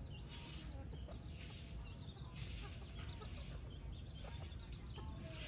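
Chickens and their chicks clucking and peeping softly, with many short calls, over a high hiss that swells and fades about once a second.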